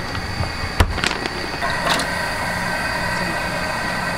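Plastic bags being handled, with a sharp knock about a second in. Then a steady rushing hum with a faint high whine from a commercial gas burner running under a pan.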